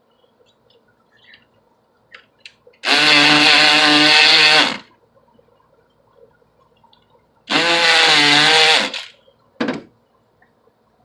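Electric lockpick gun buzzing in two runs of about two seconds and a second and a half, with a short blip near the end, as it rakes the pins of a lock. A few faint clicks come before the first run.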